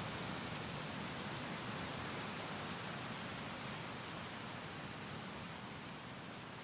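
Steady, even hiss of noise with no distinct events, slowly growing fainter.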